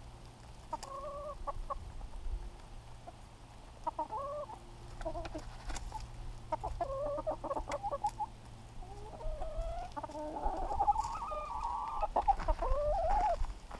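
Chickens clucking: a few short calls in the first half, then a longer, wavering drawn-out call from about nine seconds in.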